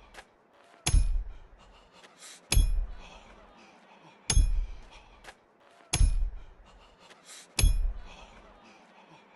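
Hammer driving a nail, five evenly spaced blows a little under two seconds apart, each a heavy thud with a bright metallic ring, with faint lighter taps between.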